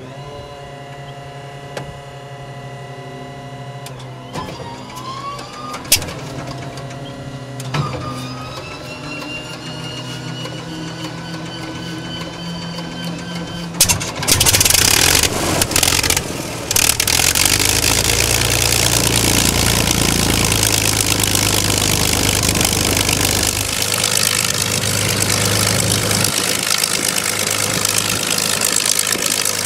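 Curtiss P-40E Warhawk's Allison V-12 engine being started. The starter whines and climbs in pitch for about fourteen seconds, with a couple of clicks along the way. Then the engine catches with a loud, uneven sputter and settles after a few seconds into a steady run.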